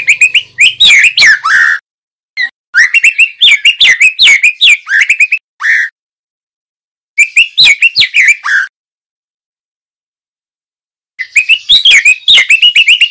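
Juvenile male white-rumped shama singing loud, fast phrases of rapid whistled and chattering notes, in four bursts with short silent pauses between them.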